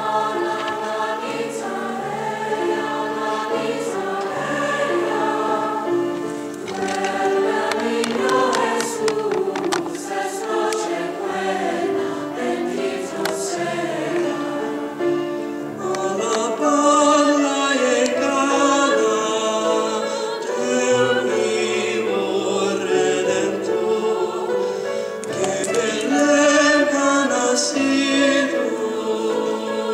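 Mixed school choir singing in parts from sheet music, with a male soloist singing at a microphone in front of the choir near the end.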